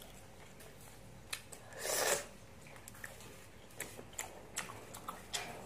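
Wet eating sounds of a person chewing boiled small squid: scattered soft mouth clicks, with one short, louder wet sound about two seconds in.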